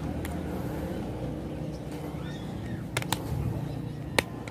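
Pliers clicking on the wire that binds a roasted chicken to its bamboo spit: two sharp clicks close together about three seconds in and a louder one about a second later, over a low steady hum.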